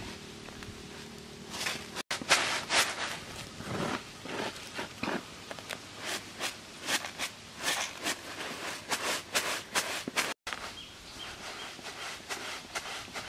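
Hands rubbing and swirling flour across a woven bamboo tray: irregular rasping swishes of grit on bamboo, about one or two a second, as the flour is worked into small pellets.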